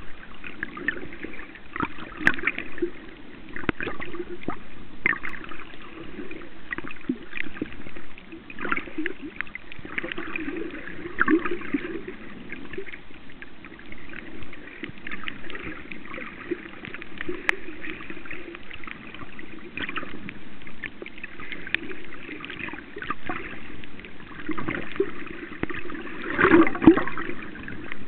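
Water sloshing and gurgling around a camera held underwater, with irregular small pops and clicks throughout and a louder surge of water noise near the end.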